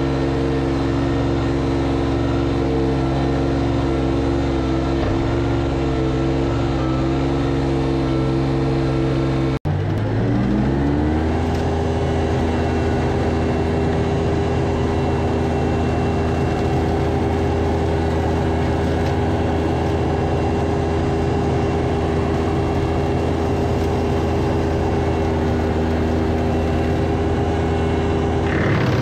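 Compact tractor engine running steadily. After a brief break about ten seconds in, it revs up over a second or so and holds a steady higher speed.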